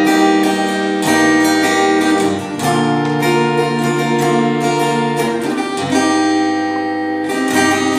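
Instrumental passage of a worship band: acoustic guitar strumming chords over low sustained bass notes, with the chord changing every couple of seconds.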